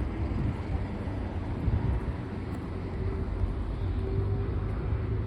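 Steady low engine rumble, with a faint steady tone joining it partway through.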